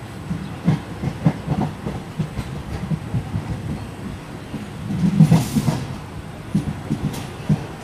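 Running Indian Railways locomotive heard from inside its cab: a steady low rumble with irregular knocks as the wheels clatter over rail joints and points. About five seconds in there is a brief burst of hiss.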